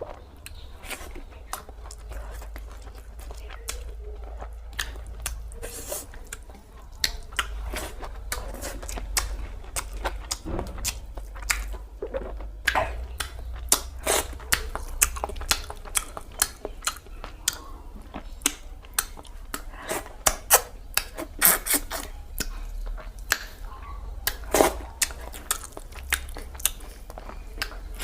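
Close-miked eating sounds: a person chewing and smacking mouthfuls of rice and cabbage-potato curry, with many short wet clicks that come thicker and louder in the second half. A low steady hum runs underneath.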